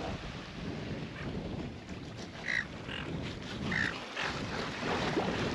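Seagulls calling: two short squawks, about two and a half and four seconds in, over the steady rumble of wind and lapping water at the shore.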